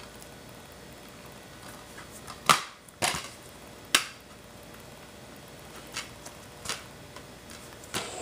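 Sharp clicks and clunks from a TV/VCR combo's tape mechanism as a VHS tape loads and starts to play. There are about six, the loudest about two and a half seconds in.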